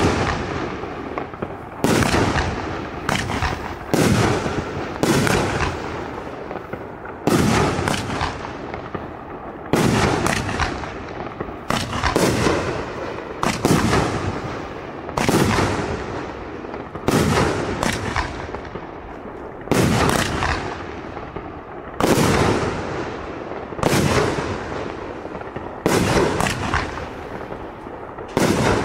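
A 2-inch, 25-shot firework cake firing shot after shot, one every one to two seconds. Each shot is a sharp bang that fades over about a second.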